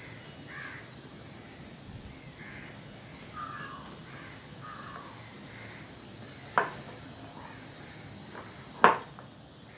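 A spoon mixing crumbly rice flour and jaggery syrup in a bowl, with two sharp knocks of the spoon against the bowl, a light one about six and a half seconds in and a much louder one near the end. Faint bird calls sound in the background during the first half.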